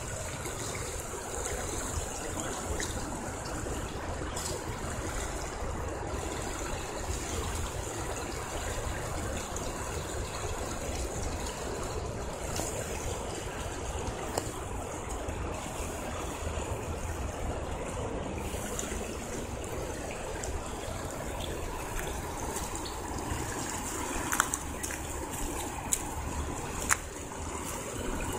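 River current flowing steadily, a constant rushing of moving water, with a few sharp clicks near the end.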